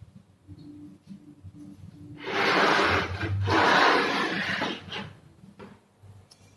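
A harsh rasping scrape in two long strokes of about a second each, with a short break between.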